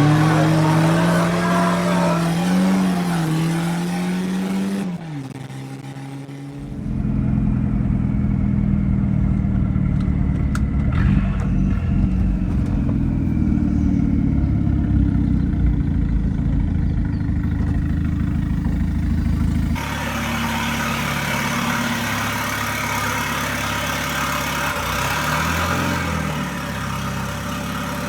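1994 Volvo 940's turbocharged engine revving hard while driven and slid on dirt: pitch climbing over the first few seconds, a short dip, then held at steady high revs for a long stretch. Later the sound changes to a hissier run with a couple of quick rev swings near the end.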